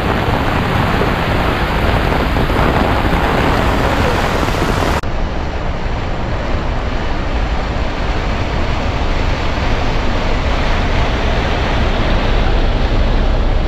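Heavy rain pouring in a dense, steady hiss, with a low rumble of wind on the microphone. The sound changes abruptly about five seconds in, losing its highest hiss.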